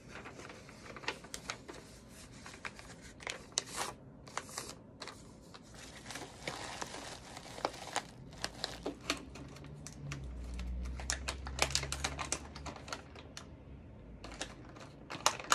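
Paper and packing material rustling and crinkling in a cardboard shipping box as a card is pressed down onto crinkle-cut paper shred and bubble wrap, with many light clicks and taps. A low hum comes in about ten seconds in and lasts about three seconds.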